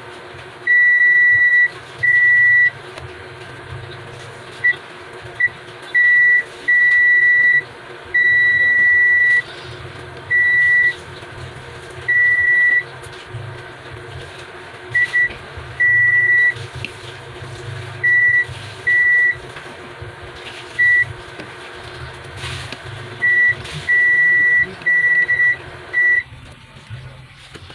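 Digital multimeter's continuity buzzer beeping: a steady high-pitched tone sounding in about twenty irregular short and longer beeps as the test probes touch points on an LED TV's T-con board. The beeps mark continuity across capacitors on the board's 12 V line, which are shorted.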